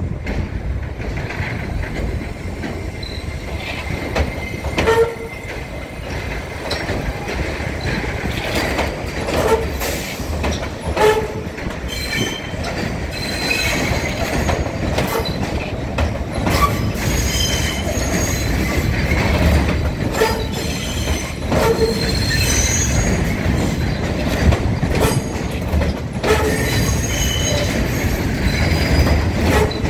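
NYC R68 subway train pulling out and running past close by, with a steady wheel-and-motor rumble that grows louder. High-pitched wheel squeal joins in from about twelve seconds on. Scattered sharp cracks come from electrical arcing at the train's third-rail contact shoes.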